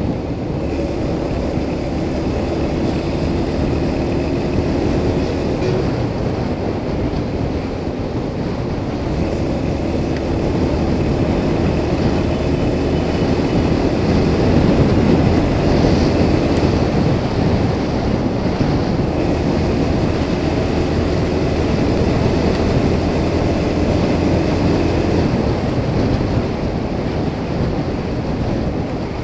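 Motorcycle engine running steadily while the bike cruises down a highway, with wind rushing over the microphone. It gets a little louder near the middle.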